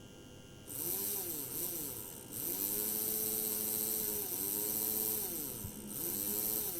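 Piko BR62 TT model locomotive's small electric motor and gearbox running at medium speed on the bench, a loud whirring gear noise that starts about a second in, its pitch swinging up and down, with two brief dips. The gearbox runs without lubrication, and the owner suspects the motor itself is also a noisy example; the noise carries through the helping hand into the table.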